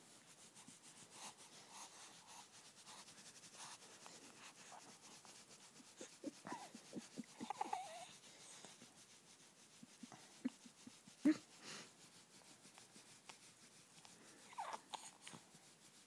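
A baby's faint breathing and a few short, soft vocal sounds while being burped, with one sharper short sound about eleven seconds in.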